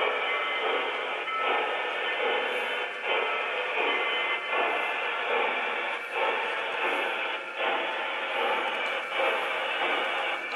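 Large-scale model steam locomotive and its train running on the track, a steady rushing hum with brief dips about every one and a half seconds.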